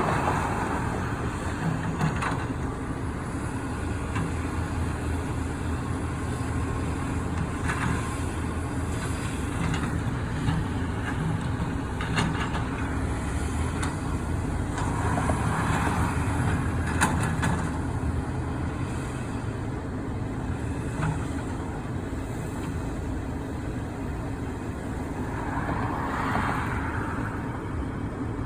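Heavy vehicles or construction machinery running steadily with a low engine hum. A few sharp knocks sound now and then, and a louder noisy swell comes three times.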